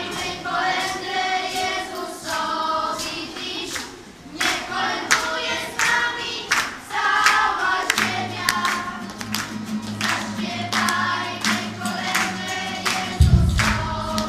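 A group of school children singing a Christmas carol together. A steady low accompaniment comes in about eight seconds in, and there is a brief low thump near the end.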